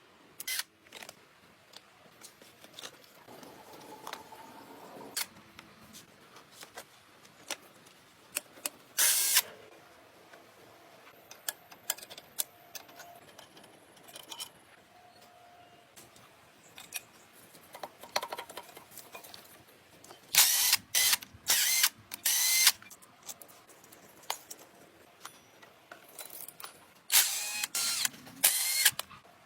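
Workshop tool sounds: scattered clicks and knocks of hand tools on metal, with short bursts of a power tool, loudest in a quick run of four a little past the middle and again near the end.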